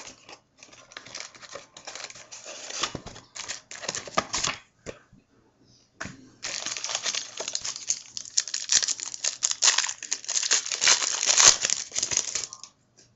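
Trading-card wrapping being torn open and crinkled by hand, as a box and a pack of football cards are opened. Scattered crackles run for about five seconds, then after a short pause comes a longer, denser stretch of crinkling.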